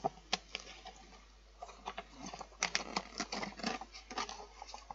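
Peel-off seal of a Pringles can being pulled back slowly, giving an irregular run of small crackles and ticks.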